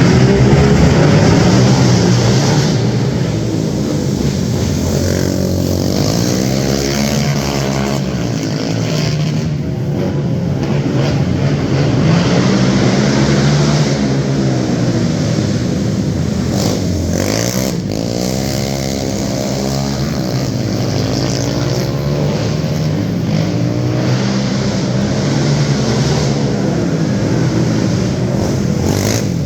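Youth racing quad engines running laps, revving up and backing off, their pitch rising and falling every few seconds.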